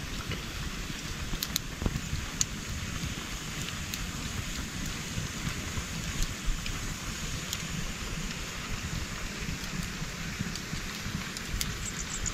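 Steady monsoon rain falling, with scattered drops ticking sharply on a nearby surface over a low, constant rumble.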